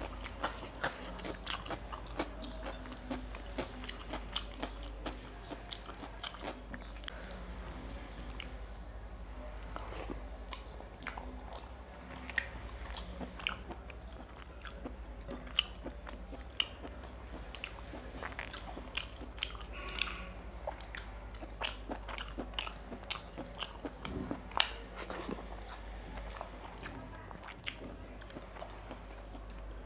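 Close-miked eating of rice and curry by hand: chewing with many short, irregular wet clicks and smacks, over a faint steady low hum.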